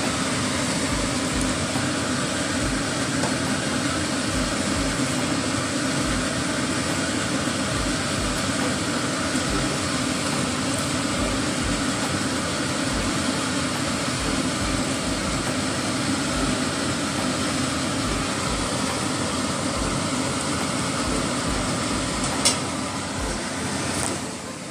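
Pot of fish soup boiling on the stove, a steady hiss and bubbling with soft irregular low thuds, while it is skimmed with a mesh strainer. A single sharp tick comes near the end.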